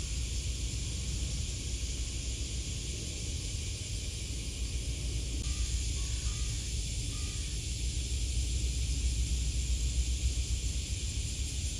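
Steady outdoor ambience: a low rumble under a constant high hiss, with a few faint short tones about halfway through.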